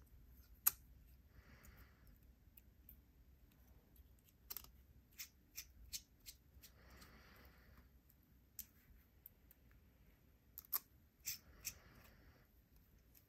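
Faint, scattered small metallic clicks and ticks of a precision screwdriver bit seating in and turning small screws in a folding knife's handle. A sharper click comes about a second in, and there are clusters of clicks in the middle and near the end.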